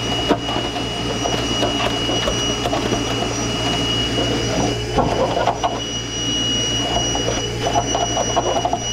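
A machine running steadily with a low hum and a thin high whine, with irregular clinks and rustling of tools and hose being handled.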